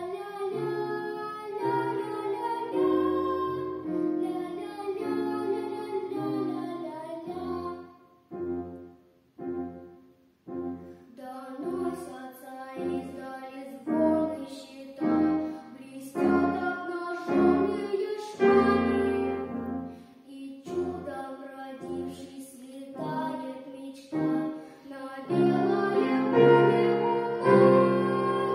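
A boy singing a song to grand piano accompaniment. About eight seconds in, the music breaks off for two seconds, then the piano comes back in with short, evenly spaced chords.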